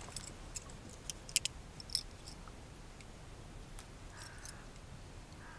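Fishing tackle being handled by hand at a reel: a few scattered light clicks and ticks, the sharpest about a second and a half in.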